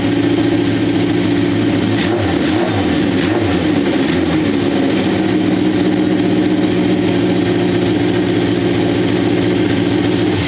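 Honda CB750 air-cooled inline-four engine running on its first start-up after a home chopper build, blipped up in revs about two seconds in and then settling back to a steady idle.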